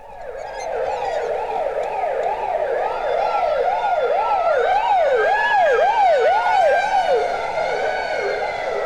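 Sirens of ambulance and police cars sounding together, fast up-and-down wails about two a second, overlapping. They grow louder over the first couple of seconds and stay loud, as if the vehicles are approaching.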